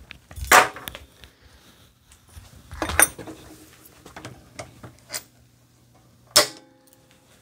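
A few sharp metallic clicks and clunks as a bare motocross engine is handled and turned on its engine stand. The last clank, about six seconds in, rings briefly.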